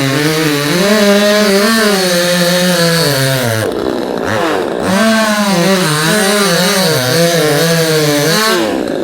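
Proyama 68cc two-stroke gas chainsaw running at high revs, its pitch wavering, with two sharp drops in revs that climb back up, about three and a half seconds in and near the end.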